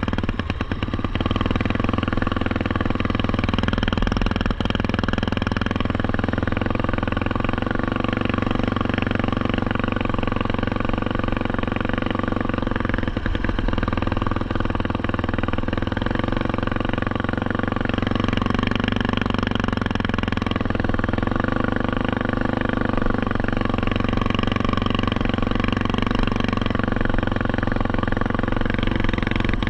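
Small off-road vehicle engine running close by while riding on a dirt track, steady, its pitch easing up and down gently with the throttle.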